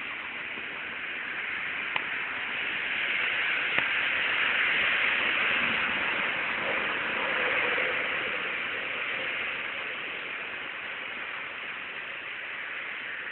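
A dog crunching a raw cabbage with its teeth: a steady crackly crunching that swells for a few seconds in the middle, with two sharp clicks about two and four seconds in.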